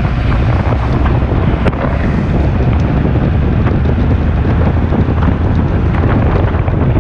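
Loud wind buffeting a camera microphone held out the window of a moving car, a heavy rumbling rush.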